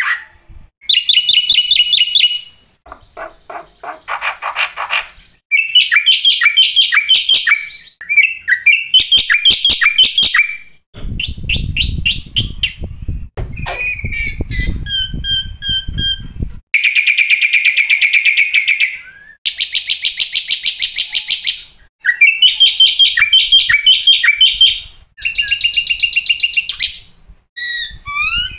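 Black-winged starling (jalak putih) singing a varied song in short phrases of repeated chirps, rapid trills and whistled notes. About halfway through comes a lower, rough rattling stretch.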